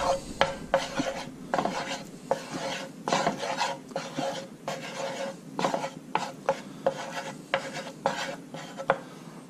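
Metal spoon scraping and stirring red curry paste around in oil in a nonstick frying pan, in short repeated strokes about two to three a second.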